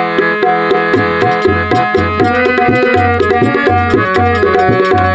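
Instrumental interlude of a devotional song (bhajan): a held, reedy melody over tabla-style hand drumming with a steady beat.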